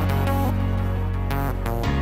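Background music: an electronic track with a heavy steady bass and a regular beat.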